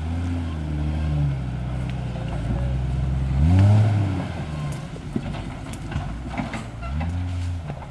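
Dodge Dakota pickup engine revving up and down under load while crawling over rough ground. The biggest rev comes about three and a half seconds in and another near the end, with a few short knocks and rattles from the truck in between.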